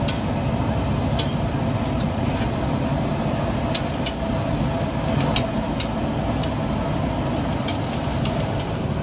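Metal spatula scraping and tapping on a large flat dosa griddle as dosas are lifted and folded, giving irregular sharp clicks over a steady low rumble.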